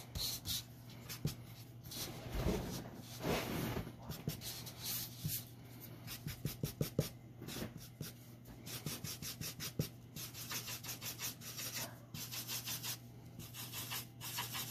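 Copic alcohol marker rubbing on paper in quick, small circular strokes: a rapid run of short scratchy rubs, over a faint steady hum.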